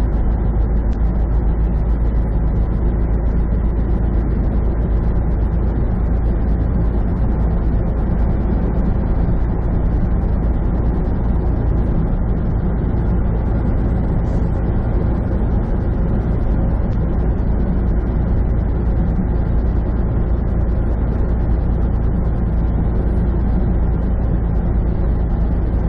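Semi truck driving at highway speed, heard from inside the cab: a steady low engine drone with tyre and road noise.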